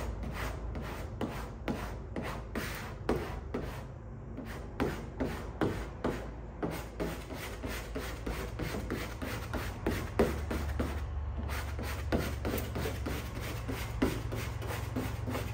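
Squeegee rubbing a dry-applied vinyl hood stripe down onto a car hood: a quick run of short strokes, several a second, over a low steady hum.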